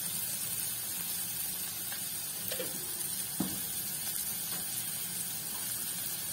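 Chopped onion, green chilli and capsicum sizzling steadily in hot oil in a kadhai, with a single light knock about three and a half seconds in.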